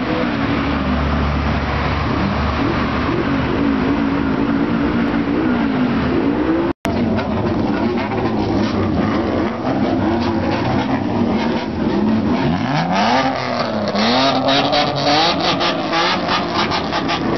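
Straight-piped car exhausts being revved over and over, the engine pitch rising and falling in loud sweeps. After a brief dropout about seven seconds in, the revving continues with quick rising blips and a rapid run of sharp pops near the end.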